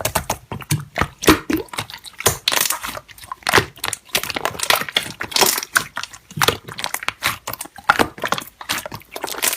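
Slime being squeezed and pressed by hand: a dense, irregular run of crackling clicks and crunches.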